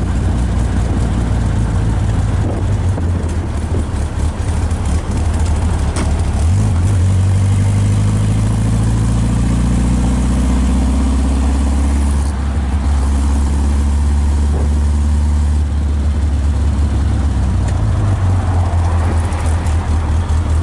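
1951 Morgan Plus 4's four-cylinder engine running under way, heard from the open cockpit. Its revs climb steadily from about six seconds in, drop back about a second later, then hold steady.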